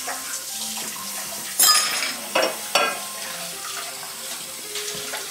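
Running water at a kitchen sink, a steady hiss, with three sharp ringing clinks of dishes, the first and loudest about a second and a half in.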